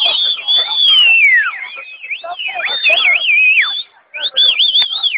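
Several people in a crowd making high-pitched warbling calls that wobble up and down several times a second, with some long falling glides. The calls break off briefly about four seconds in, resume, then cut off suddenly.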